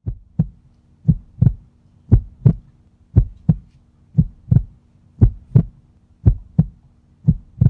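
Heartbeat sound effect: eight slow double thumps in a lub-dub pattern, about one a second, over a faint steady hum.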